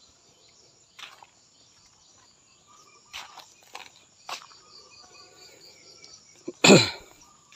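Insects trilling steadily in rural woodland, a high drone with a regular pulsing chirp, with a few short rustling steps on dry leaves. Near the end comes one brief, loud call that falls in pitch.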